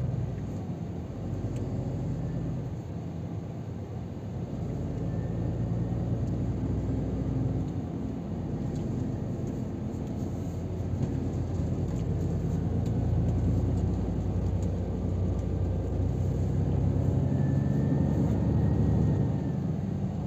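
Scania R500 truck's diesel engine running while driving, with tyre and road noise, heard from inside the cab; the engine grows louder in the second half.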